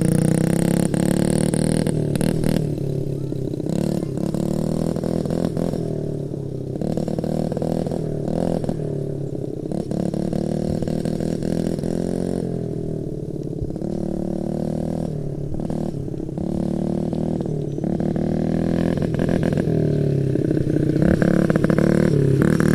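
Honda CRF50 dirt bike's small four-stroke single-cylinder engine running continuously while being ridden. Its pitch rises and falls as the throttle is opened and eased off.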